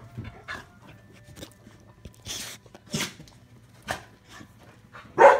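Dog barking: a few short, scattered barks and yips, with the loudest bark near the end.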